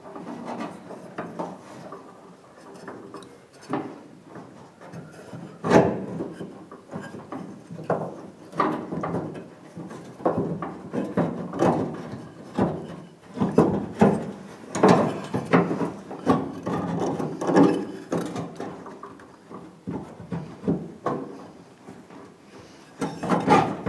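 Hands fitting a plastic tailgate handle into a pickup's tailgate and hooking its latch rods into the rod clips. Irregular clicks, knocks and rubbing, busiest about two thirds of the way through.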